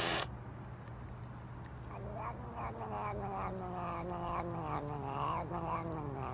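A domestic cat makes a long, low, drawn-out yowl. It starts about a second and a half in, slowly falls in pitch and pulses a few times a second. A short rush of noise comes right at the start.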